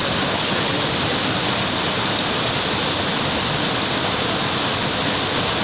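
Whitewater rapids pouring over a rock ledge close to the microphone: a loud, steady rush of churning water.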